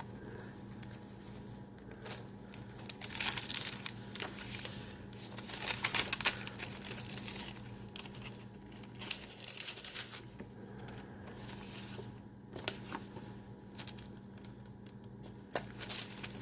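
Paper rustling and crinkling in irregular bursts as the tea-dyed pages, tags and envelopes of a handmade junk journal are turned and handled.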